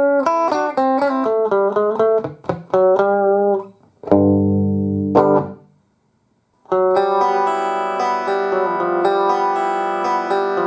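Guitar played through an amplifier: a quick picked single-note run, then a strummed chord about four seconds in. After a brief dead silence, a chord rings on from about seven seconds in with notes picked over it.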